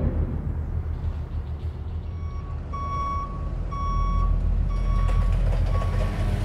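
A vehicle's reversing alarm beeps about once a second, five times, starting about two seconds in, over a steady low engine rumble.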